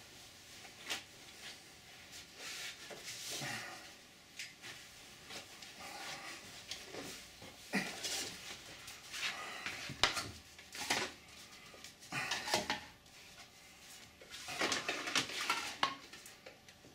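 Hard objects being picked up and handled: scattered knocks, clicks and clatter with some rustling as a model wing part is fetched and moved about.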